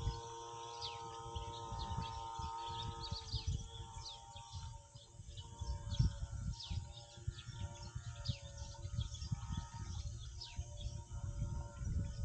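Small birds chirping outdoors: many short, high, down-slurred calls scattered through, over a steady background hum and an uneven low rumble.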